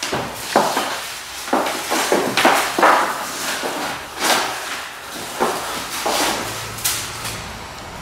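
Bare and sandalled feet stamping and landing on a wooden floor, about nine irregular thuds that echo in a bare room.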